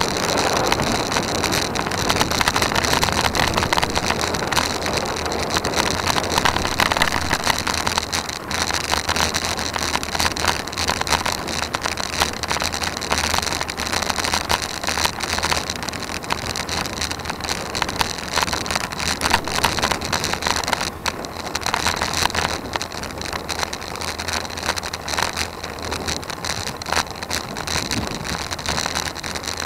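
Wind rushing over the microphone of a camera riding on a road bike, mixed with road rumble and frequent small knocks and rattles from the bike on the asphalt. A steady high whine runs underneath.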